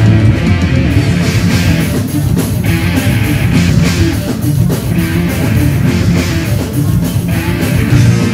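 Live metal band playing loudly on stage, with bass guitar and drum kit.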